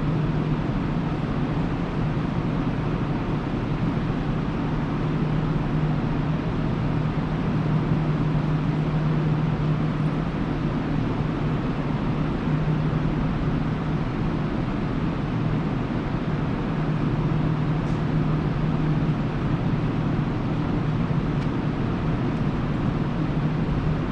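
Steady railway-station ambience: an even rushing noise with a low hum that swells and fades every few seconds, with no train arriving or passing.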